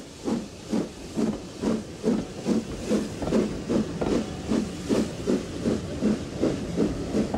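Southern Railway S15 class two-cylinder 4-6-0 steam locomotive working a passenger train away, its exhaust beating steadily at about two and a half beats a second, with hissing steam.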